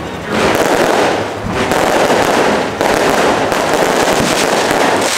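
Aerial fireworks going off overhead in dense, continuous crackling, with sudden louder surges about a third of a second in and again near three seconds.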